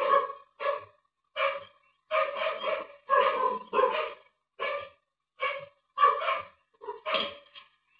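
A dog barking in a rapid series of short barks, some coming in quick runs of two or three, with brief pauses between.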